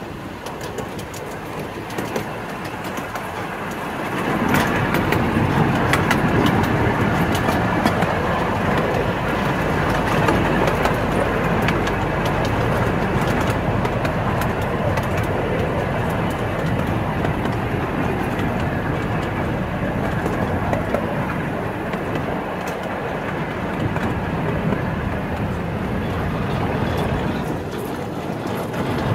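Ride-on miniature railway train running, heard from an open passenger car: a steady rumble of wheels on the track with scattered clicks, getting louder about four seconds in.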